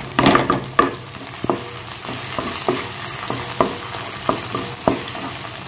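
A spatula scraping and knocking against a kadai as a brinjal and fenugreek-leaf curry is stirred, with irregular knocks over a steady sizzle from the hot oil.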